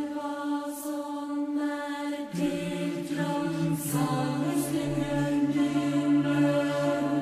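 Slow, chant-like music of long held tones. A lower held note comes in about two seconds in, and soft breathy swells rise now and then.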